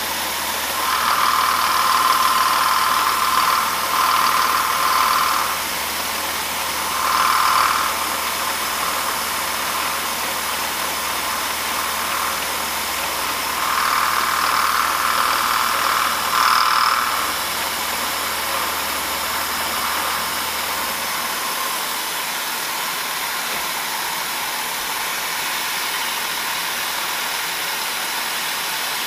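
End mill side-cutting a slender drill-rod part on a DoAll vertical milling machine, over a steady hiss of coolant spray. A high-pitched squeal comes and goes in several stretches, the sign of the thin part flexing and chattering under the cut. A low hum stops about two-thirds of the way through.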